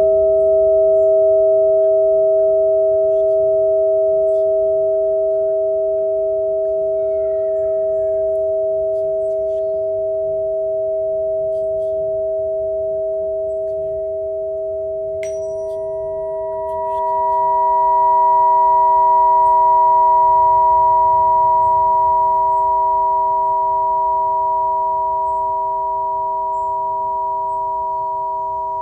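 Sustained pure ringing tones: two steady low tones held throughout. About halfway through, a light click brings in a higher tone that swells for a couple of seconds and then slowly fades.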